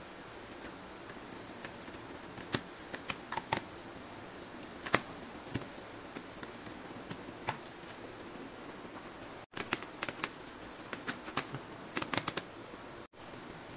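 Scattered light clicks and taps of kitchen utensils handling food over a steady hiss, with a busier run of taps in the last few seconds.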